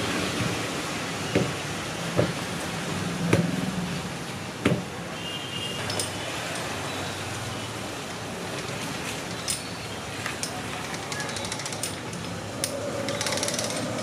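Street noise with a steady hum, broken by four sharp knocks in the first five seconds and a few lighter clicks later on.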